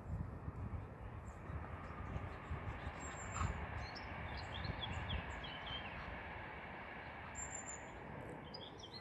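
Small birds chirping in repeated short, high notes, mostly in the middle and again near the end, over a steady low background rumble.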